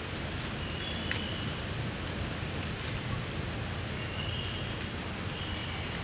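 Steady outdoor background noise with a low rumble, broken by a few brief high chirps about a second in and again near the end.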